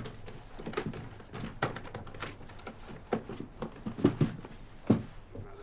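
Irregular thumps and scuffling as a leather suitcase is pushed down on and handled, with a few heavier knocks in the second half.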